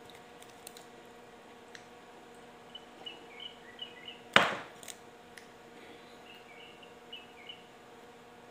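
Two short runs of faint high chirps, like small birds, over a quiet room. A few light clicks, and one sharp loud click with a short tail about halfway through.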